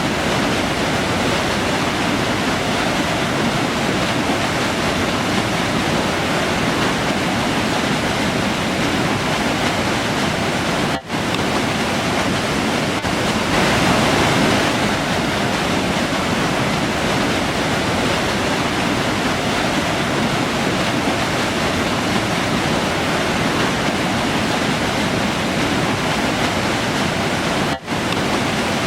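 River water rushing in a steady, dense roar of flowing water. The sound drops out for an instant twice, about eleven seconds in and near the end.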